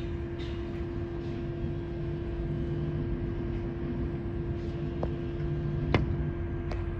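Steady machinery hum heard from inside a tower crane cab: a constant droning tone over a low rumble, with a sharp click about six seconds in.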